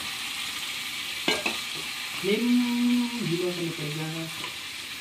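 Raw marinated chicken pieces, just added to hot oil in a kadai, sizzling and frying as a metal spatula stirs them, with one knock of the spatula against the pan about a second in. Midway a low hum-like tone steps down in pitch for about two seconds.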